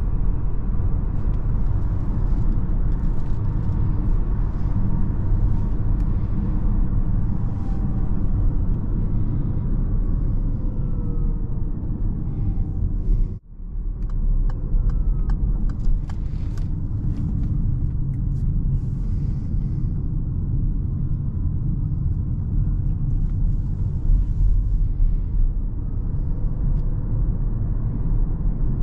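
Inside the cabin of a Peugeot e-2008 electric SUV on the move: steady tyre and road rumble, with a faint electric-motor whine gliding up and down in pitch. The sound drops out briefly about halfway through.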